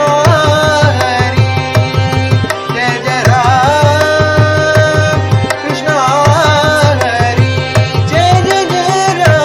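Devotional bhajan in Kapi ragam: a voice singing held notes with gliding ornaments over harmonium, with a steady mridangam rhythm from a metronome app.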